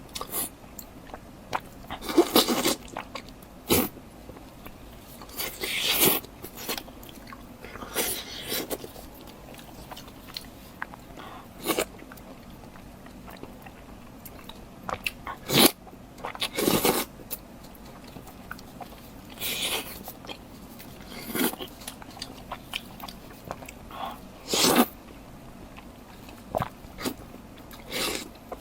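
Close-miked eating: irregular crunchy bites and chewing, a short burst every second or two, the loudest about a quarter and again near the end.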